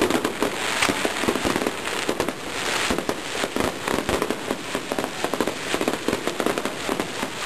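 Fireworks going off in quick succession: a dense, continuous crackle of small bangs, with a few louder reports standing out.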